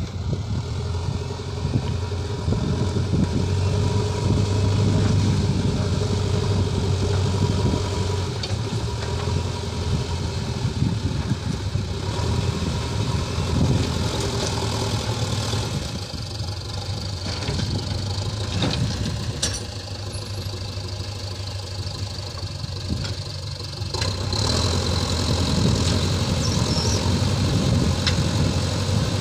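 JCB 3DX backhoe loader's diesel engine running as the machine works, a steady low hum; it eases off for several seconds past the middle and picks back up about five seconds before the end.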